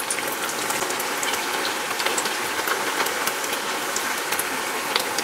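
Sel roti deep-frying in hot oil: a steady sizzle with many fine crackles.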